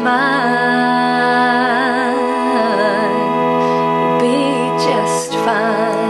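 A woman singing a slow, sustained melody with vibrato over held accompanying chords. She pauses for a short breath a little after five seconds, then begins the next phrase.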